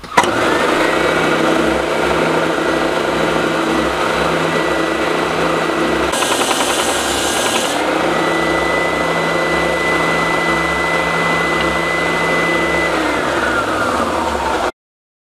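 Triton belt and spindle sander running with a steady motor hum and whine. For about a second and a half in the middle, a piece of timber is pressed against the moving sanding belt and adds a rasping hiss. Near the end the motor's pitch starts to fall as the machine runs down.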